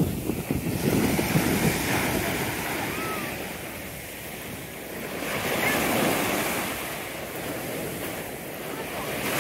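Small sea waves breaking on the beach and washing up and back over the sand and fine pebbles. The surf swells and eases every few seconds.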